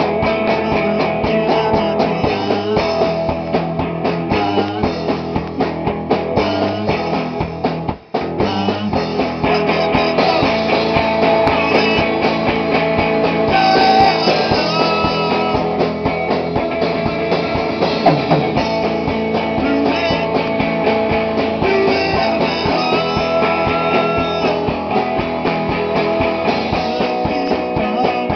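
Rock band playing live in rehearsal: electric guitar and drum kit, cutting out for an instant about eight seconds in.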